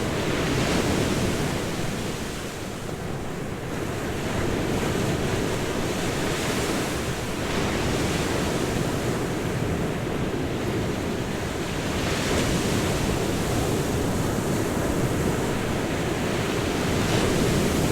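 Ocean waves breaking and washing on a shore in a continuous rush, swelling and easing every few seconds.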